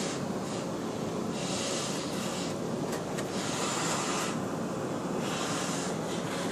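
Passenger train in motion heard from inside the carriage: a steady running rumble, with a hiss that swells and fades every couple of seconds.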